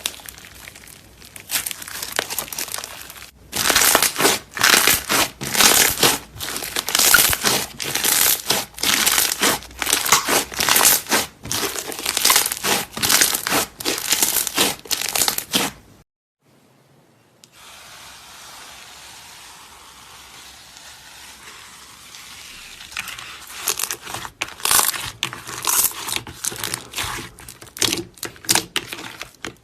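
Slime being squeezed and pressed by hand, with dense quick crackles and pops. About 16 s in there is a brief silent break, then a softer hiss that builds back into crackling.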